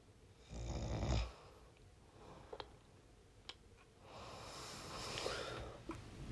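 A sleeping person breathing and snoring: one short, loud snore about half a second in, a few faint clicks, then a longer, softer breath from about four seconds in.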